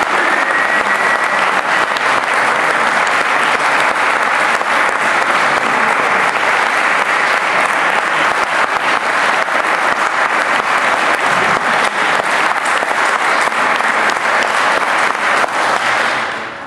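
Audience and presenters applauding steadily, with many hands clapping, fading out near the end.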